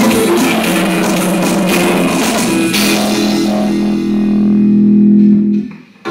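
Electronic keyboard played live: fast melodic lines over a backing rhythm, then a long held chord from about three seconds in. The chord cuts off shortly before the end, leaving a brief gap before the music comes back.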